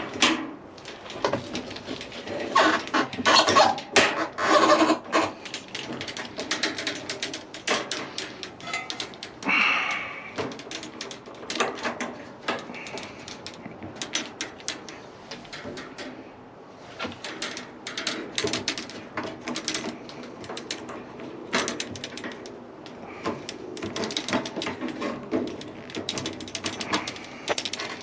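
A washing machine suspension rod is hooked with the old rod and pulled up through its mounting hole, with irregular metal clicks, knocks and scraping against the machine's cabinet.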